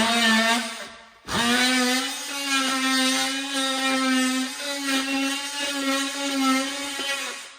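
A handheld power tool's motor whining at a steady pitch. It makes a short run first, then, about a second and a half in, starts again and runs for about six seconds before winding down.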